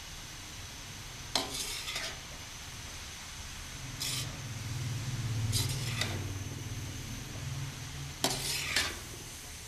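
Long metal slotted spoon scraping and turning a heap of grated carrots in a large metal karahi, in four short strokes about a second and a half, four, six and eight and a half seconds in, over a low steady hum. The carrots are being cooked down to dry off their water.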